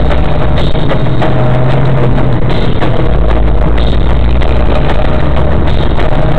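Loud music with a drum beat and a shifting bass line.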